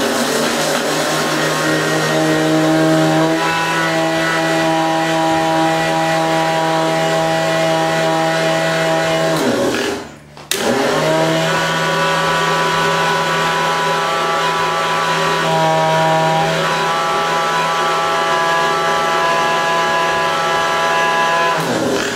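Electric kitchen mixer grinder running with its stainless-steel jar grinding torn bread slices into crumbs: a loud, steady motor hum. The motor is switched off about ten seconds in, spins down, restarts within a second, and runs on until it winds down at the end.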